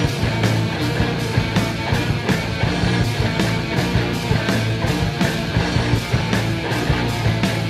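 Rock band music: guitar, bass and drums playing at a steady beat.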